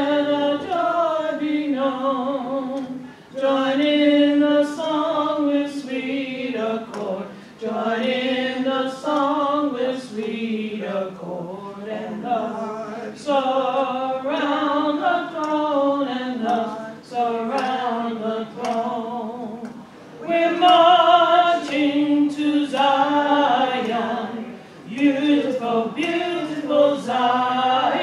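A small group of women's and men's voices singing a hymn unaccompanied, in slow, long-held notes.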